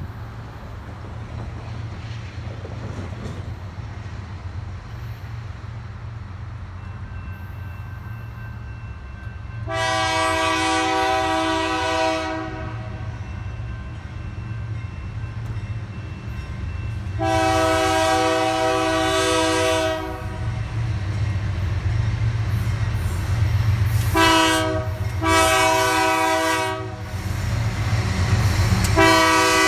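Union Pacific diesel freight locomotive approaching with its engines rumbling and sounding its air horn in the grade-crossing pattern: two long blasts, a short one, then a long one that is still sounding at the end. The engine rumble gets louder as the train nears.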